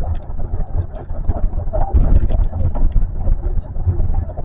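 Interior ride noise of an Osaka Metro New Tram rubber-tyred automated guideway train running along its guideway: a heavy low rumble with irregular knocks and clicks, thickest about two to three seconds in.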